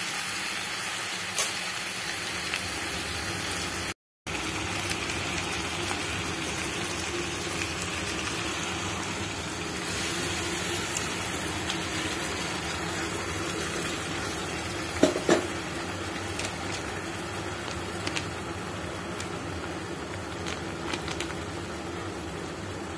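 Steady even hiss of background noise, with a few sharp metallic clinks, the loudest pair about halfway through, typical of a utensil knocking against an aluminium cooking pot.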